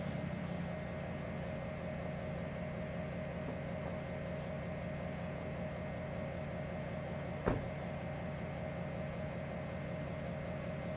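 Steady machine hum with a few constant tones, broken once by a single sharp click about seven and a half seconds in.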